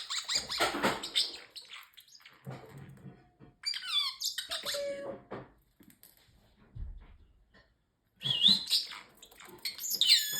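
Parrotlet chirping and squawking in short bursts of high chirps that slide up and down in pitch, with a lull in the middle and a soft low thump before a busier run of chirps near the end.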